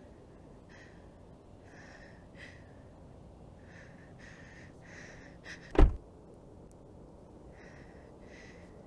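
A person breathing hard in short, uneven breaths, then a single loud, sudden thump about six seconds in; two more breaths follow near the end.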